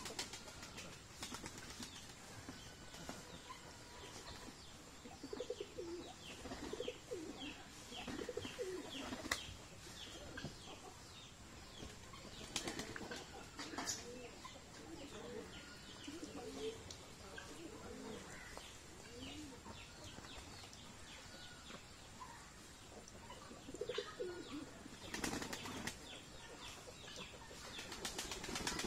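Domestic pigeons cooing in low, repeated calls, with several short bursts of wing flapping, the loudest about halfway through and near the end. Under them a thin stream of water trickles steadily into a pot.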